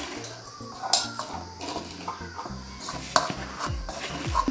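A hand mixing chopped okra in a moist gram-flour batter in a stainless steel bowl: soft wet squishing and rustling, with a couple of sharp clicks against the steel bowl about a second in and again about three seconds in.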